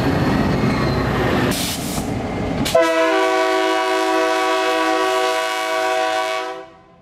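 A diesel train rumbles past for about three seconds, then a streamlined cab-unit diesel locomotive's air horn sounds one long steady blast of several notes at once, fading out near the end.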